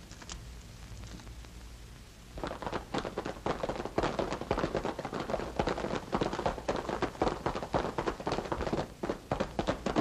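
Galloping horses' hoofbeats as a radio-drama sound effect: a fast, uneven run of knocking clip-clops that starts about two seconds in, after a faint low hum.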